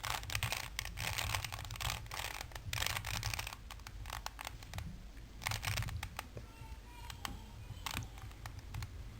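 Plastic Rubik's Cube being turned by hand, its layers clicking and scraping as they rotate through a move sequence. There is a quick run of turns over the first few seconds, another short run about five and a half seconds in, and scattered clicks after.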